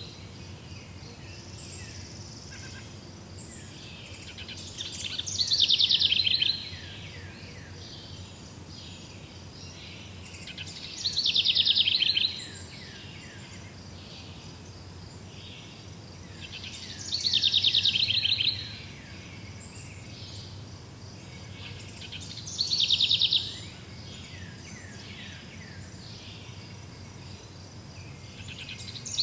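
A songbird repeating a short, fast phrase of rapid falling notes, four times, one about every six seconds, over a steady low background hum.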